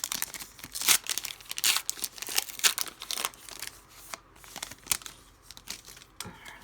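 Plastic trading-card pack wrapper being torn open and crinkled by hand, a run of sharp irregular crackles that thins out after about four seconds.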